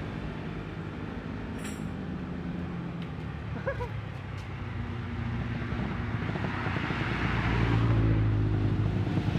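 Honda CB motorcycle's Honda Tiger engine, fitted with a 35 mm PWK Airstrike carburettor, running steadily. It gets louder about seven seconds in, as if revved.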